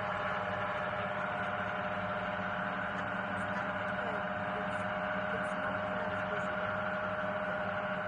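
Steady droning hum made of several held tones, unchanging throughout.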